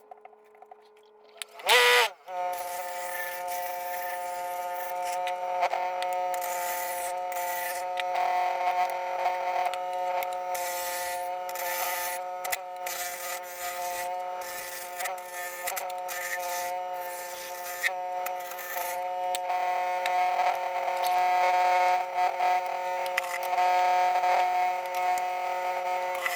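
Wood lathe running with a steady motor hum while a carbide turning tool cuts the spinning yellow cedar and walnut bowl blank, the scraping hiss of the cut coming and going in passes. It opens with a moment of near silence and a brief, loud rising whine about two seconds in.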